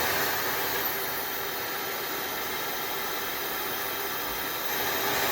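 Dyson Supersonic hair dryer running, a steady airflow rush with a thin high-pitched motor whine. It gets slightly quieter and shifts in tone about a second in, then comes back up near the end.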